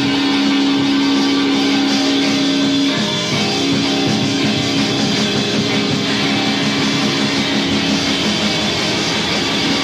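Guitar-led rock band music with no singing. A held note runs steadily, breaks off about three seconds in and comes back half a second later.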